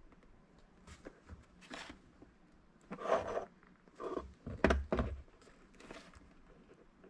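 Handling noises of small parts being worked by hand: scattered rustles and light knocks, busiest about halfway through, with one sharper knock and thump.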